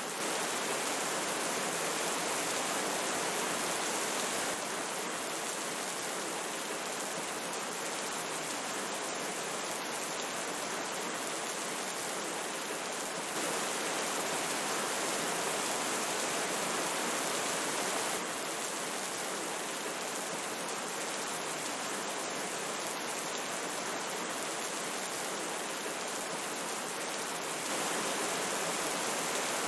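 A river flowing steadily with rain falling: an even rush of water with fine pattering. The overall level jumps up or down a little, suddenly, a few times.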